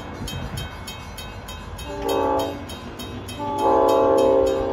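Multi-chime air horn on a Long Island Rail Road train sounding a short blast, then a long, louder one, the closing part of a grade-crossing signal. A grade-crossing bell dings rapidly and steadily throughout.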